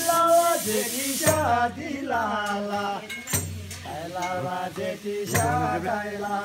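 Men singing a Tamang selo juhari folk song in long held lines, with a damphu frame drum struck three times about two seconds apart, each beat ringing low.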